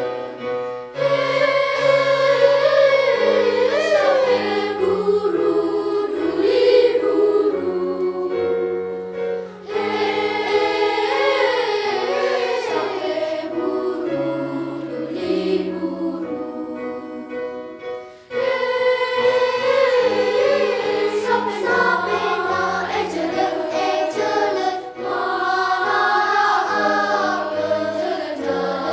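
Elementary school children's choir singing a song in parts, over low sustained accompaniment notes, with brief breaths between phrases.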